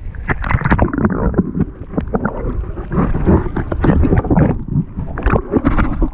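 Stream water sloshing and gurgling close to the microphone, with wind buffeting it and many irregular knocks from handling.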